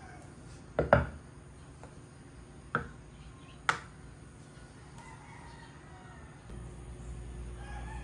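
Sharp knocks of ceramic teaware set down on a wooden tray: a quick double knock about a second in, the loudest, then two single knocks over the next few seconds. A rooster crows faintly in the distance a few times.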